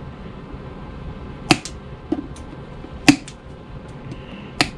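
End-cutting nippers snipping off the protruding tips of steel nails in a leather stacked heel base. There are three sharp snaps about a second and a half apart, with a few fainter clicks between them.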